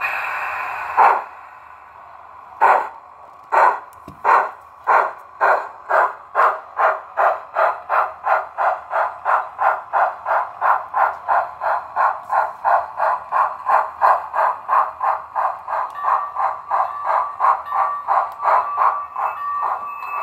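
Tsunami 2 digital sound decoder in an On3 model steam locomotive: a hiss of steam, then exhaust chuffs that start slow and quicken to about two or three a second as the engine gets under way.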